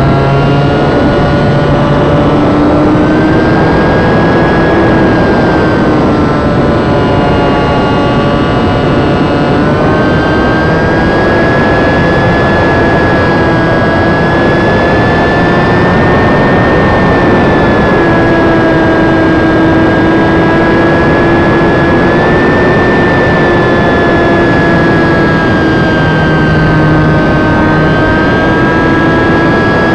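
Ultra-micro electric RC biplane's motor and propeller whining in flight, the pitch rising and falling several times with the throttle. Heavy wind rush over the tail-mounted camera's microphone runs under the whine.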